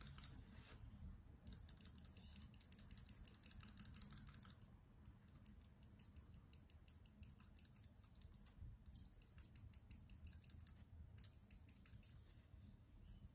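Copic marker nib scratching across paper in rapid short back-and-forth strokes, in runs of a few seconds broken by brief pauses.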